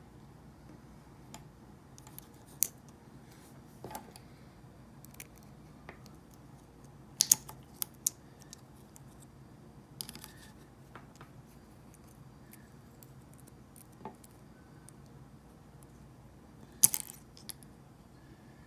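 Small parts of a T-blade trimmer head clicking and tapping as they are handled and worked together under spring tension: scattered sharp clicks, with a quick cluster about seven seconds in and the loudest click near the end.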